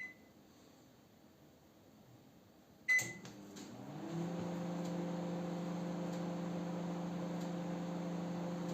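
Panasonic NN-GD577M microwave oven: a short key beep, then about three seconds later another beep and a click as the oven starts, followed by a steady running hum. The owner has found that its magnetron has failed, so the water inside does not heat.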